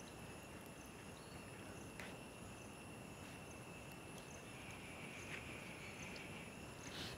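Faint outdoor ambience of insects droning steadily at a high pitch, with a few soft clicks about two, five and seven seconds in.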